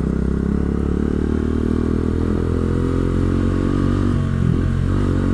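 Motorcycle engine running steadily while riding, its note holding a nearly constant pitch.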